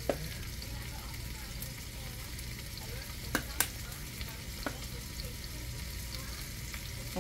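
Steady sizzling of food frying in a pan on a gas stove, over a low steady hum. A few sharp taps sound through it, two of them close together about three and a half seconds in.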